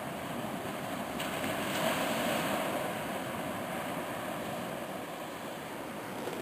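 Steady rushing noise of wind and surf, swelling a little about two seconds in.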